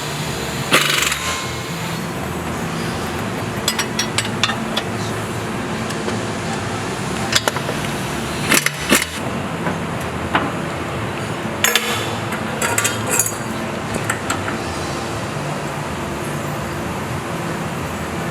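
Scattered sharp metal clinks and knocks of tools and parts being handled in a car repair shop, in small clusters, over a steady background.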